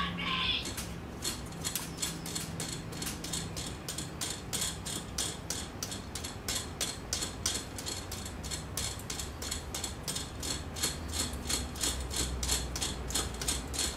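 Bowstring serving jig being swung round and round a recurve bowstring as it wraps serving thread, ticking steadily about four times a second.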